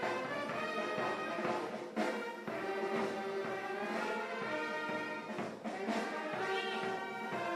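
Instrumental music, with brass-sounding horns carrying long held notes over a fuller ensemble.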